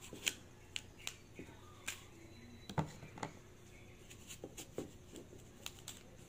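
A knife cutting through a raw apple held in the hand: scattered light, crisp clicks and snaps as the blade cuts into the firm flesh, with two sharper snaps, about a third of a second in and almost three seconds in.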